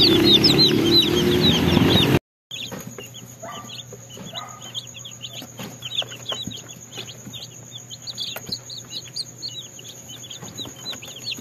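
A crowd of newly hatched Rhode Island Red and Black Australorp chicks peeping nonstop, a rapid stream of short high chirps. Over loud background noise for the first two seconds; after a cut the peeping is quieter, over a faint steady hum.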